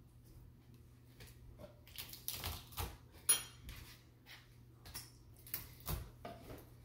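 Light kitchen clatter of a knife and utensils knocking and clinking on a cutting board and counter while garlic cloves are prepared, with one sharp clink a little past the middle.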